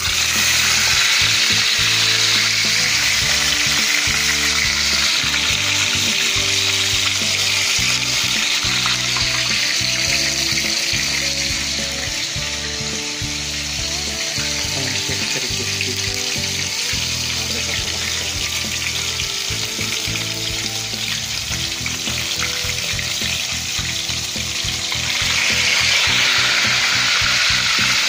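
Tilapia frying in hot oil in a wok: a loud, steady sizzle that starts suddenly as the fish goes into the oil, eases a little midway and swells again near the end.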